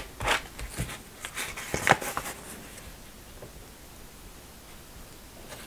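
Handling noise of glued napkin layers being pressed together on a cutting mat: a few soft taps and paper rustles in the first two seconds, then only faint quiet handling.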